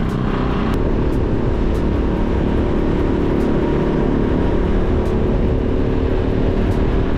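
Motor scooter engine running as the scooter pulls away and rides steadily down a street, a steady hum over a heavy low rumble of wind on the microphone. The sound changes about a second in as it gets under way.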